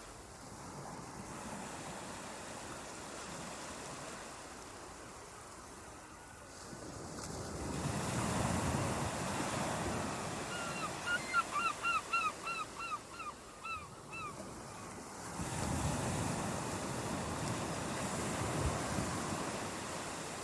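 Ocean surf washing ashore, swelling up twice as waves break and then easing off. In the middle a bird calls a quick run of about a dozen short, downward-slurred notes, three or four a second.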